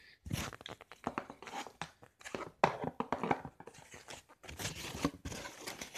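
Irregular rustling, crinkling and light knocks as cardboard and plastic packaging is handled, with a short pause about four seconds in.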